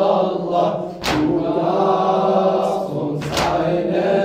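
A man's voice chanting a latmiya lament in German through a microphone, drawing out the refrain's words in long held notes. Two sharp strikes cut through it, about a second in and again about two seconds later.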